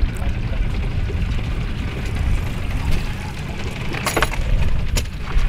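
Small outboard-powered boat under way: a steady low rumble with wind and water noise, and a few sharp clicks about four seconds in and again near the end.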